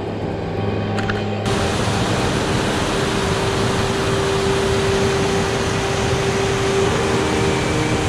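River rapids: white water rushing steadily over boulders, coming in suddenly and much louder about a second and a half in.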